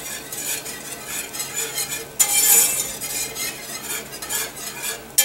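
Stainless wire balloon whisk stirring thin roux-and-bone-broth gravy in an enameled cast-iron pan: a steady run of quick wet swishes, with the wires scraping and clinking on the pan. The strokes get louder for a moment a little past two seconds in.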